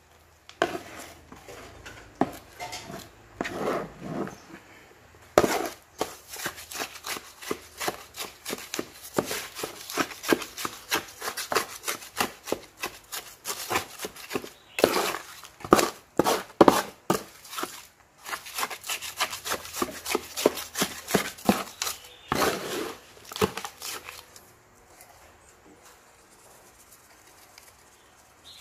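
A metal garden trowel chopping and stirring wet soil in a basin: quick, irregular scraping strokes of the blade through the mud and against the basin, stopping near the end.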